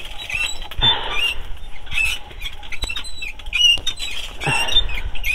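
Charcoal fire crackling with scattered sharp pops under pork belly roasting on a spit, with birds chirping in short repeated calls.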